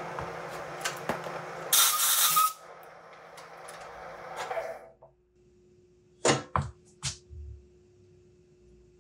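Metal lathe running during a cutoff cut on a steel Morse taper workpiece, with a loud, harsh burst lasting under a second about two seconds in. The lathe then spins down and stops about five seconds in, followed by a few sharp metallic clicks.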